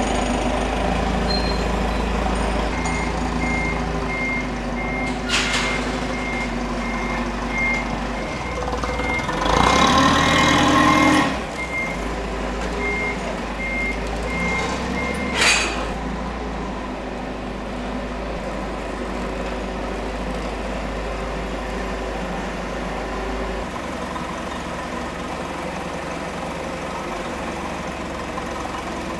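Forklift engine running steadily while its reversing alarm beeps about twice a second for roughly twelve seconds. Midway there is a louder rushing surge lasting about two seconds, and two sharp metallic knocks come, one early on and one as the beeping stops.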